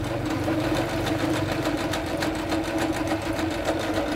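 Jaguar CD-2205MP electronic sewing machine sewing a small picot edging stitch: its motor hums steadily under a rapid, even clatter of needle strokes.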